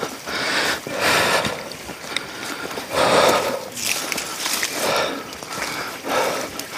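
A person breathing hard close to the microphone, one rushing breath about every second, from the exertion of walking uphill.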